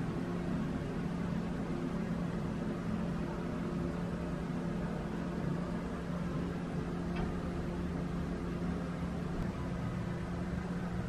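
Steady low machine hum with an even hiss, holding one pitch throughout, and a faint tick about seven seconds in.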